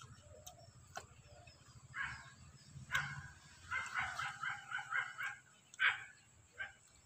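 Short animal calls in the background: a couple of single calls, then a quick run of them in the middle, then two more near the end.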